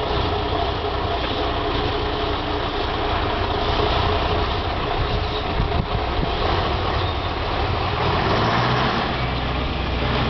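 Scania 141's V8 diesel engine running as the tanker semi-truck pulls away slowly and drives past. Its low note grows stronger about eight seconds in, as the truck turns close by.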